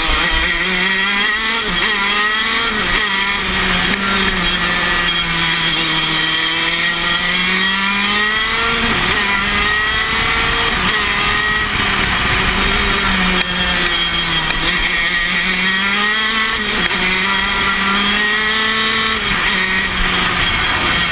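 KZ125 shifter kart's 125 cc two-stroke single-cylinder engine at racing speed, recorded onboard. Its pitch climbs and falls again and again through the corners and straights, with a few abrupt breaks in the pitch.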